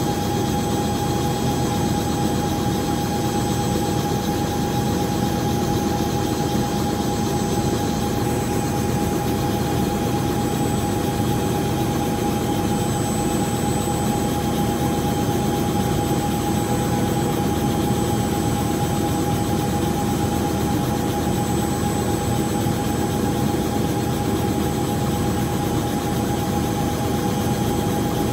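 Light two-bladed helicopter running on the ground at idle: a steady engine and rotor drone with a constant high whine.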